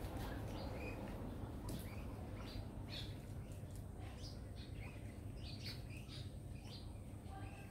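Birds chirping: many short, high chirps scattered throughout, over a steady low hum.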